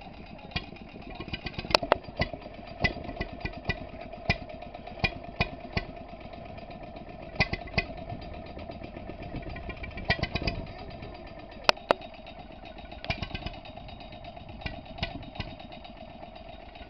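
Petter M type Little Pet two-stroke petrol stationary engine running slowly on its first fire up, firing with sharp pops at uneven intervals over a steady running sound, with a couple of louder cracks.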